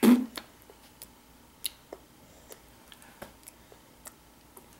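A toddler's small chewing sounds, faint scattered clicks and ticks of her mouth working on food, after one short sharp sound right at the start.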